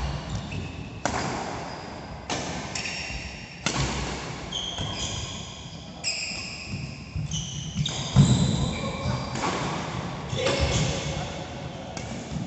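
Badminton rally in a large echoing hall: sharp racket strikes on the shuttlecock every second or so, with a heavier thump about eight seconds in. Sneakers squeak briefly and repeatedly on the court mat.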